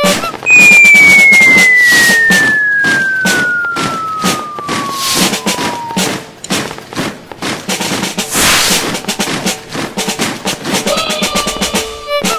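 A whistle-like tone sliding steadily down in pitch for about five and a half seconds, like a falling-bomb whistle, over a rapid snare drum roll that runs on after the whistle ends. A short hiss comes about eight seconds in.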